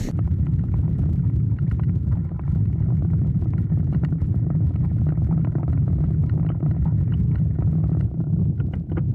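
Strong wind buffeting a bike-mounted camera's microphone while cycling into a gale: a steady, loud low rumble.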